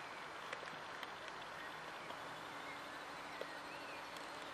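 Faint outdoor ambience: a steady hiss with scattered short bird chirps and a few light clicks.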